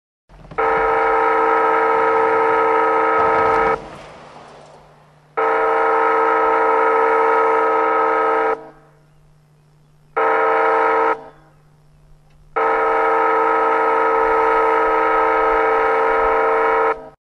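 Railroad wayside horn (automated horn system) at a grade crossing sounding the crossing signal: two long blasts, a short one, then a final longer blast, the standard warning that a train is approaching the crossing.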